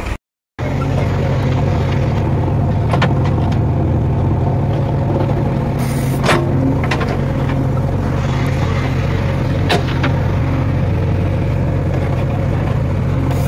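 JCB 3DX backhoe loader's diesel engine running steadily while the backhoe digs mud, with a few short knocks.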